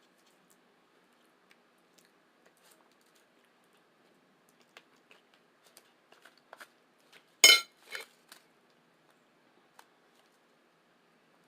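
Close-miked eating sounds: faint scattered mouth clicks and smacks of chewing tacos. About seven and a half seconds in there is one loud, sharp crunch, then a softer one half a second later.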